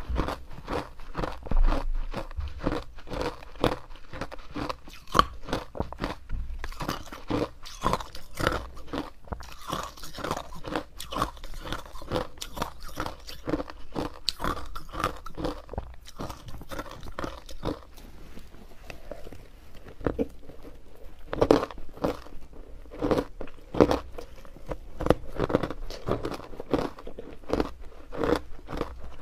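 A person biting and chewing crushed ice dusted with matcha powder and sesame seeds: a continuous run of crisp crunches.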